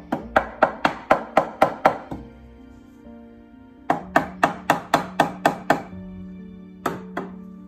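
Rapid hammer blows on a wooden chair frame, about four a second: a run of about eight, a short pause, a run of about seven, then two more near the end. Background music plays underneath.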